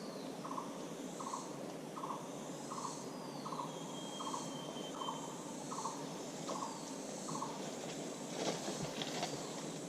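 A jungle bird giving a short hooting note over and over, a little more than once a second, until it stops about seven and a half seconds in, with other birds chirping higher and a few brief rustles near the end.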